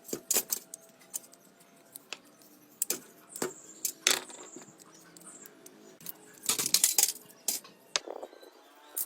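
Small metal objects clinking and clattering as they are handled, in scattered sharp taps with a denser flurry about two thirds of the way through.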